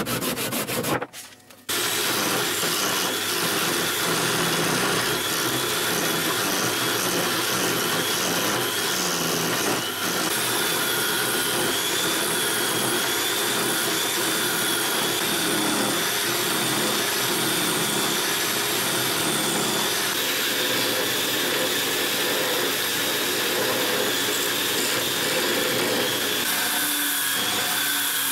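Electric drill running steadily as a makeshift lathe, spinning an apple-wood handle while a blade scrapes and cuts the turning wood, with a steady high whine. The sound breaks off briefly about a second in. Near the end, sandpaper rubs against the spinning wood.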